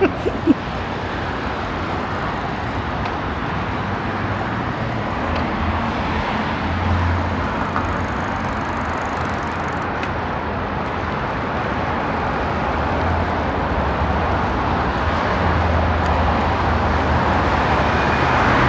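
Steady rushing noise of riding a bicycle on a road: wind across the microphone and tyres rolling on tarmac, with a low rumble coming and going underneath.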